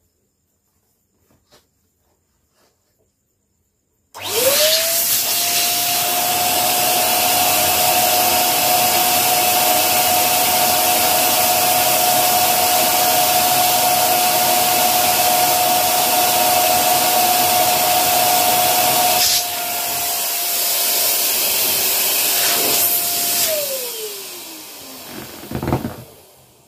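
Small electric air pump switched on about four seconds in: its motor whine quickly rises to a steady pitch over rushing air as it inflates a vinyl inflatable chair. It gets quieter about fifteen seconds later, then is switched off, the whine falling in pitch as the motor winds down.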